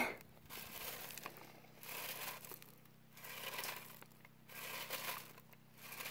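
Dirt and gravel being sifted on a wire-mesh screen, shaken in regular strokes a little over a second apart, each stroke a gritty rattle and scrape.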